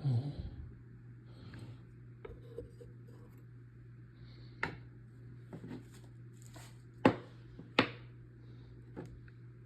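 A few sharp clicks and knocks of hard objects being handled, the loudest two about seven and eight seconds in, over a steady low hum.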